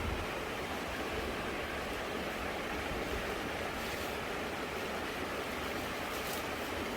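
Steady rush of a small creek flowing, with a low, uneven rumble of wind on the microphone.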